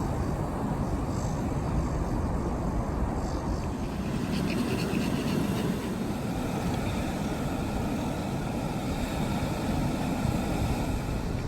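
Steady low rumbling noise, mostly wind on the microphone.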